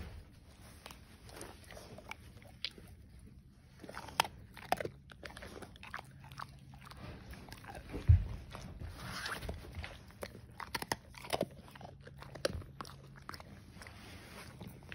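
A dog crunching and chewing food taken from a person's hand, in irregular sharp crunches, with one louder thump about eight seconds in.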